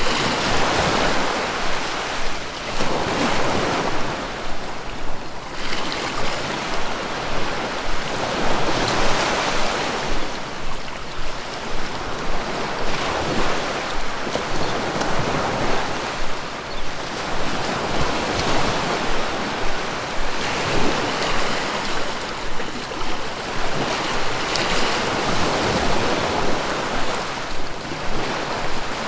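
Ocean waves breaking on a beach, the surf swelling and falling back every few seconds.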